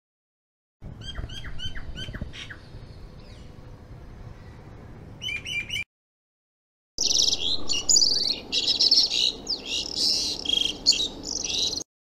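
Mynas calling: first a Common Myna's run of quick, repeated falling chirps. After a short break comes about five seconds of loud, harsh chattering and squawks.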